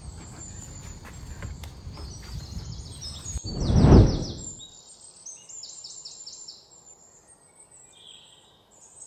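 Wind rumbling on the microphone for about three seconds, then an abrupt change to birds chirping in quick repeated phrases. About four seconds in, a loud whoosh swells and fades.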